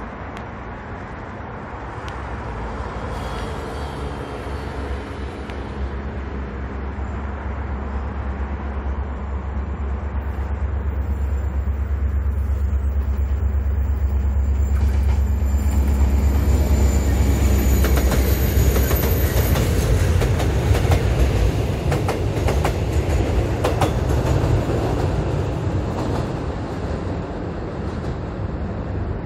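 Mugunghwa-ho passenger train, hauled by a diesel locomotive, approaching and crossing a steel railway bridge. A low engine rumble builds to its loudest a little past halfway, with a faint high steady whine over it. Through the second half comes a run of wheel clacks as the carriages pass over the rail joints, and then the sound eases off near the end.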